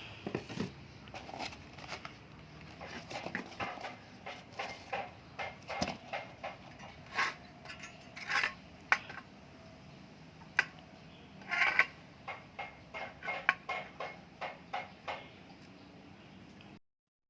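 Irregular clicks, taps and light knocks of small hard objects being handled, a few louder clacks among them, stopping short near the end.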